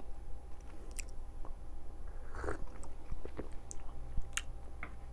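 Soft mouth sounds of someone tasting espresso: scattered small lip smacks and clicks with a brief breath or slurp about halfway. A small ceramic cup is set down near the end.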